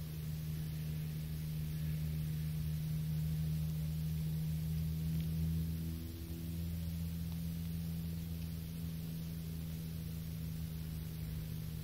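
A steady low drone of a distant engine, with a brief dip and shift in its tone about halfway through.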